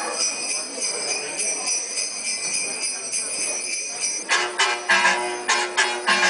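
Sleigh bells jingling in a steady shake, then about four seconds in a song comes in with loud, sharp hits on a beat.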